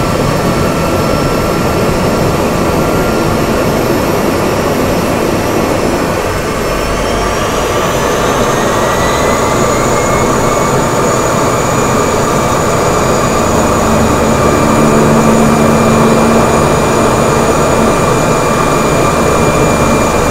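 Cessna 208 Grand Caravan's Pratt & Whitney PT6A turboprop engine and propeller running steadily while taxiing, heard from inside the cockpit. Its whine rises in pitch about seven seconds in and then holds, and the sound grows slightly louder a few seconds later.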